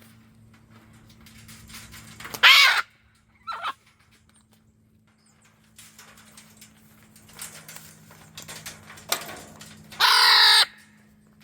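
Macaws squawking: one harsh squawk about two and a half seconds in, a short one a second later, and a longer harsh squawk near the end, with the birds worked up and squabbling.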